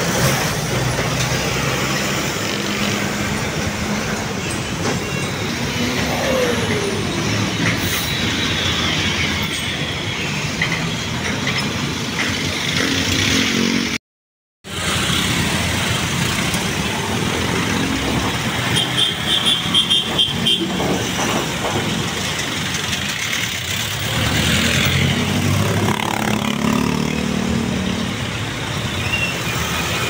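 Busy road traffic close by: trucks and cars passing with their engines running. The sound breaks off completely for about half a second midway, then the traffic goes on.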